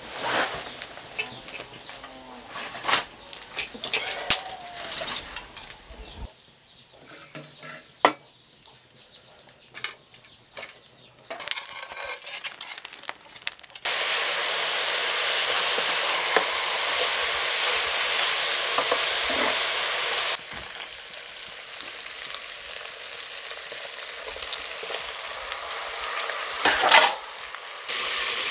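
Meat frying and sizzling in a metal pot over a wood fire, stirred with a stick. The sizzle starts loud about halfway through, then falls to a quieter hiss. Before it come scattered knocks and clicks, and there is one louder knock near the end.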